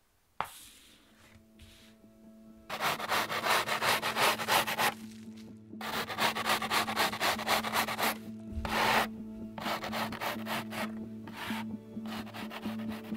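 Snow being scraped off planed wooden boards with a plastic scoop, in runs of quick rubbing strokes lasting a second or two each, over soft background music. A single sharp click comes just after the start.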